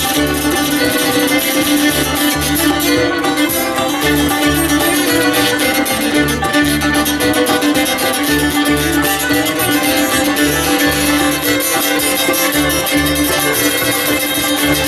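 Live acoustic string band playing an instrumental passage: strummed acoustic guitar, fiddle and a walking upright bass line, with no singing.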